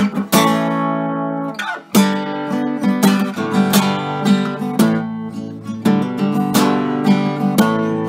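Background music: acoustic guitar strumming chords in a steady rhythm, with a brief break a little under two seconds in.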